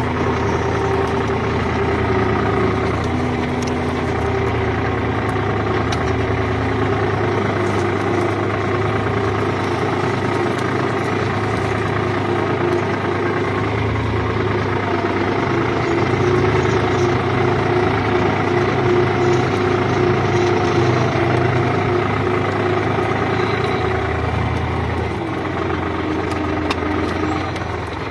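New Holland 55-56 tractor's diesel engine running steadily, its pitch drifting a little up and down as it pulls a plough.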